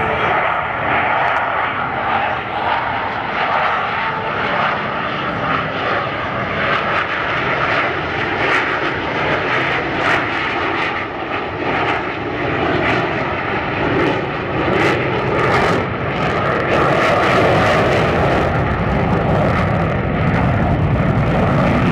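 Jet engines of two F/A-18 fighters making a slow pass at under 120 miles per hour: a loud, steady jet roar that grows louder and deeper in the last few seconds.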